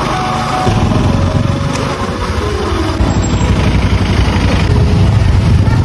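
Motorcycle engine running while riding at low speed, with wind rumbling on the microphone.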